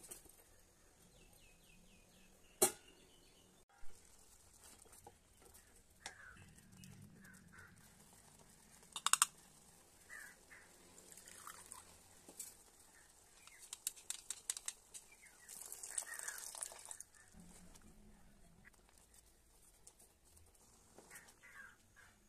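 Faint kitchen sounds from stirring soup: a wooden spatula knocking and scraping in a steel pot, with a few sharp knocks and a stretch of quick clatter. Birds call faintly in the background throughout.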